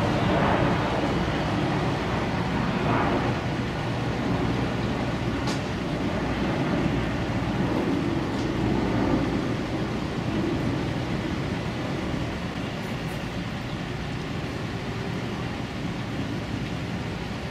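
A steady low rumble from a large container ship passing close by as it moves up the river.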